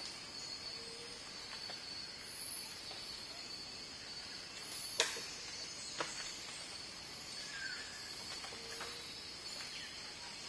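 Tropical forest ambience: a steady high-pitched insect drone, with two sharp clicks about five and six seconds in and a few faint short chirps.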